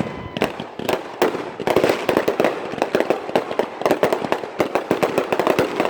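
Firecrackers going off in rapid, irregular runs of sharp pops and cracks, many overlapping.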